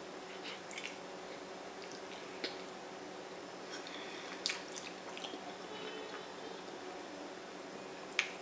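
Quiet wet eating sounds from a seafood boil: chewing, mouth smacks and the squish of sauce-covered food handled with fingers, with a few short sharp clicks, the loudest near the end.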